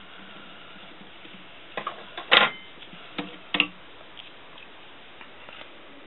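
A few sharp clicks and knocks in two quick clusters about two to four seconds in, the loudest about two and a half seconds in: handling noise close to the microphone.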